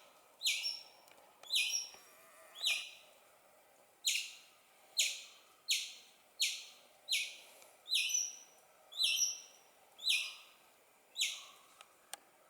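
Squirrel chirping: a run of about a dozen short, harsh calls, each falling in pitch, roughly one a second.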